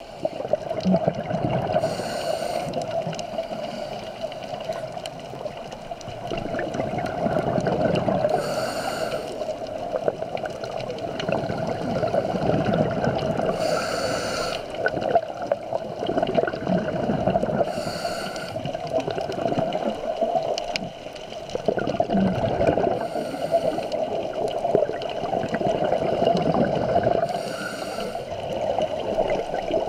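Scuba diver breathing through a regulator underwater: a short hissing inhalation every four to six seconds, six in all, with bubbling exhalations in between.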